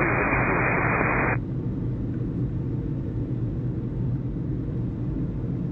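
Air traffic control radio receiver hiss from an open transmission, cutting off abruptly about a second and a half in. After it a steady low rumble runs on.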